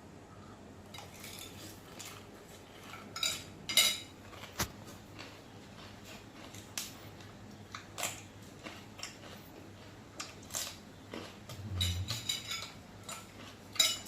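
Utensils clinking against dishes in an irregular series of sharp clinks, some ringing briefly, with a busier cluster near the end.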